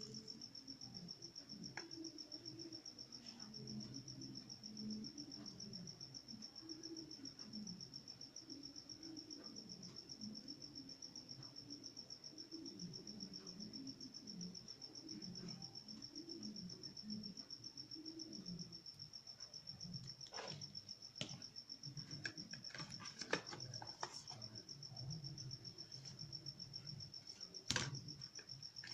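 Cricket trilling steadily, with a low muffled murmur underneath and a few sharp clicks and taps in the last third.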